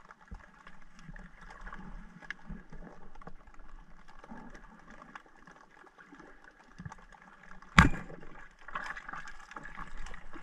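Underwater ambience with faint scattered crackling clicks, then about eight seconds in a single sharp, loud crack as a band-powered speargun fires its shaft at a mullet.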